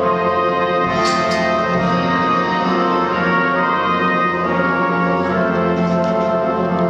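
Music with slow, sustained chords, with two brief sharp accents about a second in.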